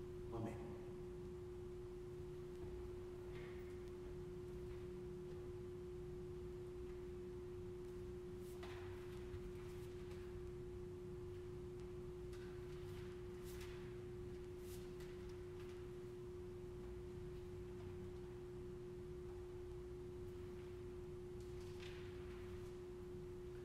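Faint steady hum on one unchanging pitch, with a few soft rustles scattered through it.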